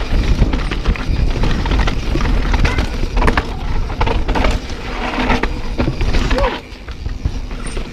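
Mountain bike ridden fast down a wet trail: a steady rumble of wind on the microphone under the rattle and repeated knocks of the bike on the rough ground. The level dips for a moment near the end.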